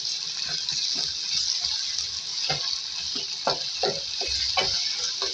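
Onions, green chillies and ginger-garlic paste sizzling in hot oil in a metal pan, stirred with a wooden spatula that knocks and scrapes against the pan several times in the second half.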